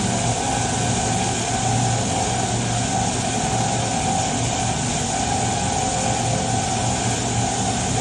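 15 kW electric diamond wire saw running steadily. A constant motor hum sits under an even grinding hiss of the wire cutting through reinforced concrete.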